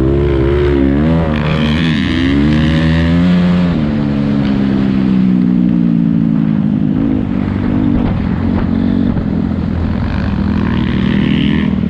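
Motocross bike engine revving up and down repeatedly, then settling at about four seconds into a steadier, slowly falling note.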